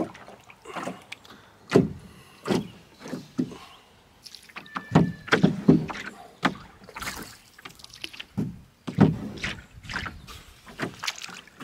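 Paddling a cedar strip canoe: a wooden paddle dipping and pulling through the water in a series of swishing, splashing strokes, about one a second.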